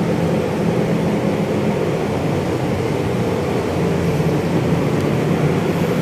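Three-phase exhaust fan running at high speed in its ductwork: a steady, noisy rush of air with a low hum underneath.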